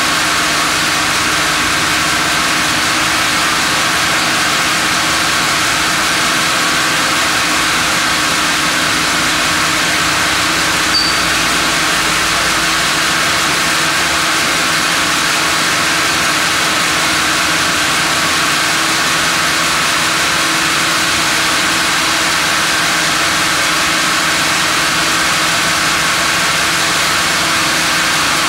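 Steady, loud hum of sawmill machinery, a band saw and hydraulic log carriage, running continuously with a constant low tone as a monkeypod log is carried along.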